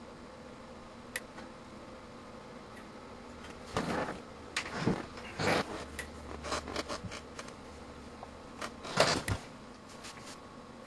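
Sharp clicks and snaps in irregular clusters from a homemade high-voltage surge-test rig as 2 kV pulses are applied to a BK Precision 2703C multimeter. The loudest cluster comes about nine seconds in.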